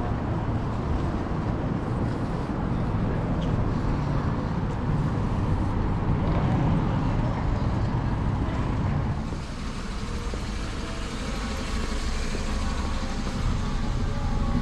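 City street ambience with steady road traffic noise. The background dips slightly in level about nine seconds in.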